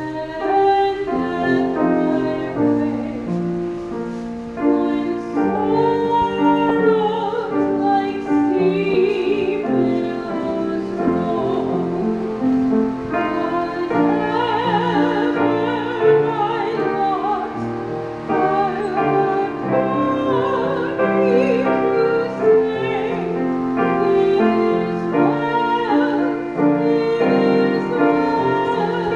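Church music: a solo voice singing a slow song with wide vibrato over sustained instrumental chords.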